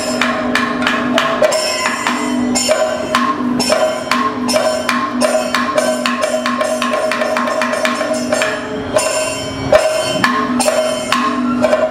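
Kathakali accompaniment: a chenda drum and small hand cymbals strike a steady rhythm, a few strikes a second, over a held pitched tone.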